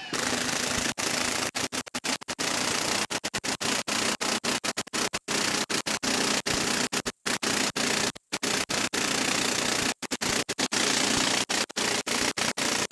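Milwaukee M18 1-inch impact wrench (2867-20) hammering continuously under heavy load as it drives a long lag screw down into a wooden stump, running on a regular 3 Ah battery. The sound cuts out for split seconds many times.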